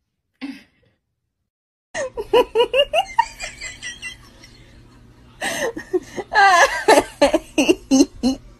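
A person laughing in quick repeated bursts from about two seconds in. The laughter eases off, then grows into harder laughing from about five and a half seconds in.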